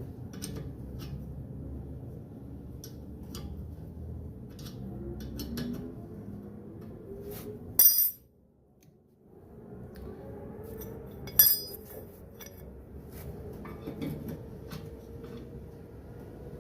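Metal hand tools clinking and tapping against brake parts, scattered light clicks with two sharp loud clinks, one about halfway through and one a few seconds later, over a steady low rumble. The sound drops out for about a second just after the first loud clink.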